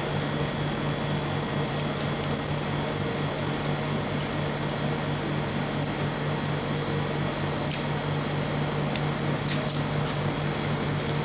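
Clear plastic candy-cane wrapper crinkling in short, irregular crackles as it is peeled off by hand, over a steady low hum.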